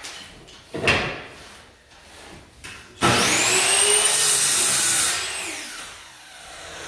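An electric power tool motor starts about three seconds in, its whine rising as it spins up. It runs steadily for about two seconds, then winds down with a falling whine. A few knocks come before it.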